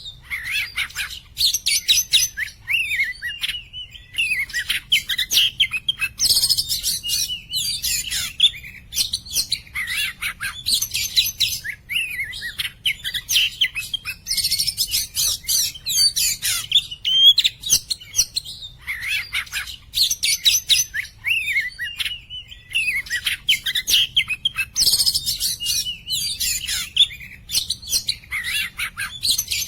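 Oriental magpie-robin (kacer) in full song: a fast, unbroken run of varied whistles, trills and chattering notes, with a few harsher, higher-reaching chattering passages.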